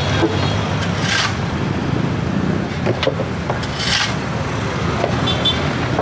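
Case skid-steer loader's engine running steadily, while shovels and hoes scrape rubble on concrete, with two loud rasping scrapes about a second in and near four seconds in.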